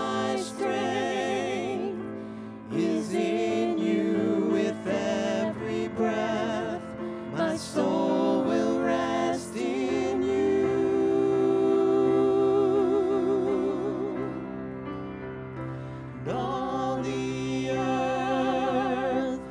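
Two women singing a slow worship song in harmony, with strong vibrato and instrumental accompaniment underneath. A long held note comes about halfway through.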